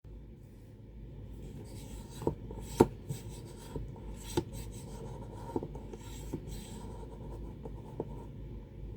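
Handling noises from a small hand-worked test rig: a series of light clicks and knocks with short rasping rubs in between. The loudest click comes a little under three seconds in.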